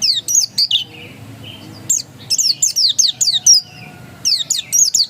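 Pleci dakun white-eye singing its insistent 'ngotot' song: three quick bursts of high, rapidly repeated down-slurred notes with short pauses between them.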